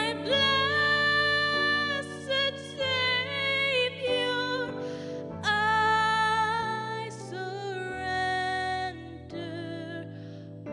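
A woman singing a slow worship song solo, holding long notes with vibrato, over sustained keyboard chords that change every second or two.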